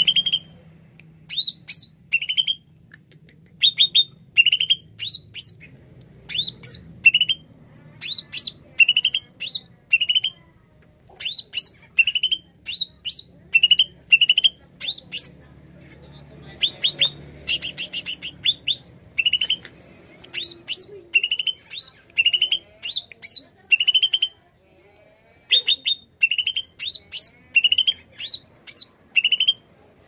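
Greater green leafbird (cucak ijo) singing hard: a fast, unbroken string of short, sharp whistled notes, each a quick sweep, about two a second. There is a dense burst of chattering a little past halfway and a brief lull later.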